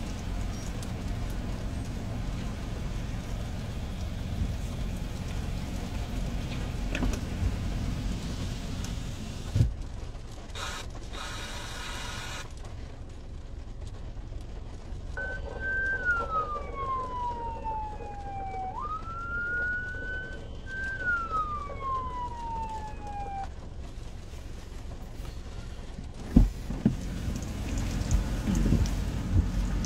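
Heavy rain drumming on a car's roof and windshield, heard from inside the car, easing after about ten seconds. About halfway a siren wails, falling, rising and falling again over roughly eight seconds, and near the end a few sharp knocks sound.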